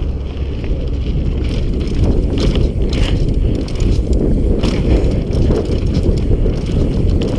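Mountain bike descending a dry dirt and gravel trail at speed: heavy wind rumble on the camera's microphone and the knobby tyres rolling over the ground, with sharp clicks and rattles from the bike every second or so.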